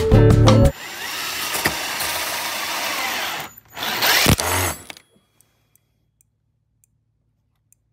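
Power drill driving a long screw down through stacked LEGO bricks, its motor running for about three seconds, stopping briefly, then running again for about a second.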